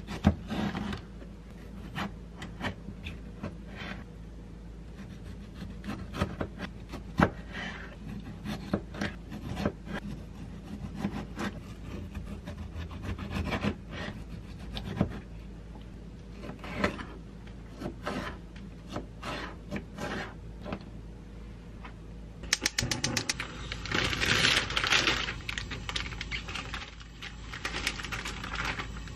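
A kitchen knife slicing through ripe tomatoes on a plastic cutting board, with irregular sharp taps of the blade against the board. From about 22 seconds in this gives way to dense crinkling of a plastic bag as tortilla wraps are handled, over a steady low hum.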